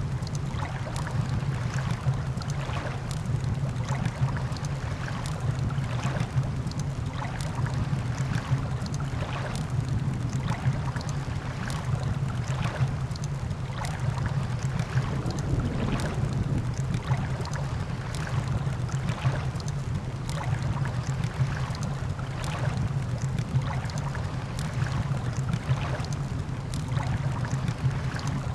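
Campfire crackling with frequent sharp pops over a steady low rumble of surf and wind.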